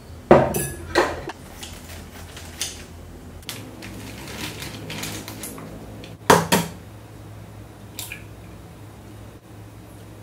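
Dishes and utensils knocking and clattering: two sharp clatters near the start and a loud double clatter a little past halfway, with lighter clinks between.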